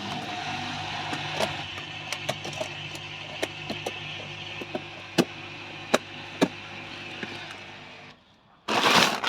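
Hoover H-Wash 300 Lite washing machine starting its cycle just after the door has locked: a steady low hum with a hiss and scattered sharp clicks. The hum drops away about 8 seconds in, and a short loud rush follows near the end.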